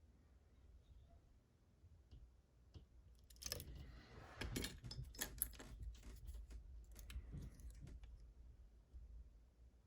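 Small metallic clicks and scraping from a lock and metal tools being handled, busiest in the middle few seconds, with a few isolated clicks before.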